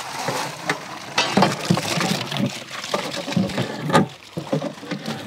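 Soaked wheat rava poured into a large metal deg of boiling chicken broth, then stirred with a long metal paddle: splashing and sloshing, with several sharp knocks. Stirring without a break keeps the rava from setting into lumps.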